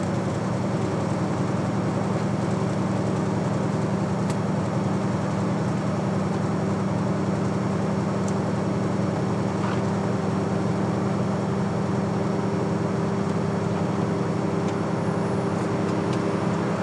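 Steady in-cab noise of a truck driving on a snow-covered highway: a constant engine drone with a low hum, under tyre and wind noise.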